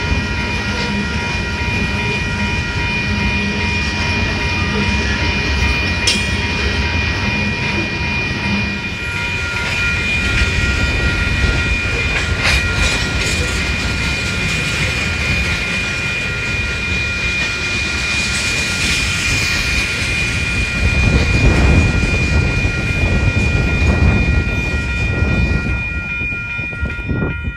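Freight train of covered hopper cars rolling past: steady rumble and clatter of steel wheels on the rails, with a steady high ringing over it and a few clanks about halfway through.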